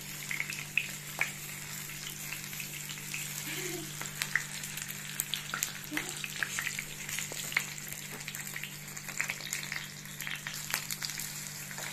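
Cooking oil sizzling steadily in a frying pan, with frequent sharp crackles and pops, as turon (banana spring rolls) and a maruya banana fritter shallow-fry.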